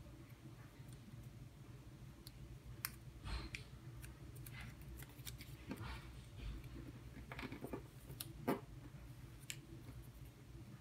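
Origami paper being folded and creased by hand: faint scattered crinkles, rustles and small clicks of the paper, with one sharper click about eight and a half seconds in.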